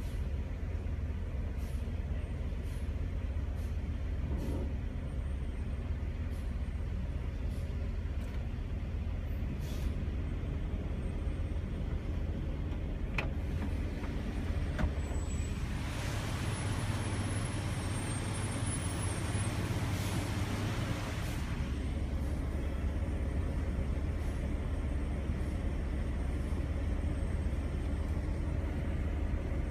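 Vehicle engines idling in a stalled traffic queue, a steady low rumble, with a loud hiss lasting several seconds about halfway through.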